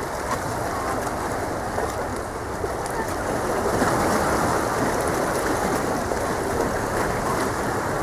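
Black Sea water washing against the rocks of the shoreline, a steady wash that swells a little midway.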